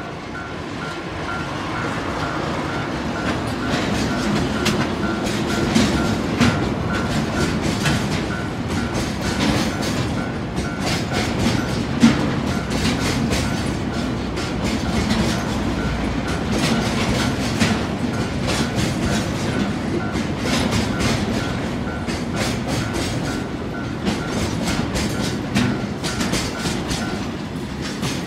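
Freight train of oil tank cars passing over a level crossing: the diesel locomotive's engine runs as it goes by, then the tank-car wheels click over the rail joints in a steady clickety-clack. The crossing's warning bell rings over and over and stops about a second before the end.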